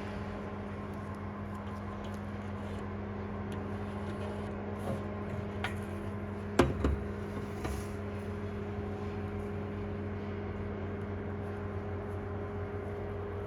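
Steady low mechanical hum, with a few light clicks and one sharp knock about six and a half seconds in.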